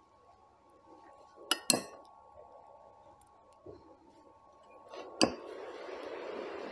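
Metal spoon clinking against a plate: two quick clinks about a second and a half in and another after five seconds, followed by a soft, steady noise of food being handled.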